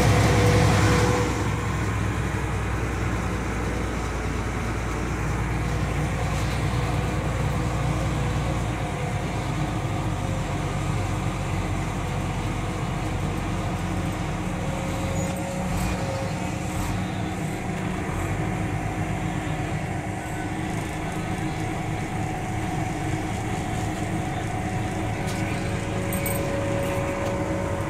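Steady low engine drone heard from inside a truck's cab as it creeps along, louder for the first second or so, with a faint whine that comes and goes.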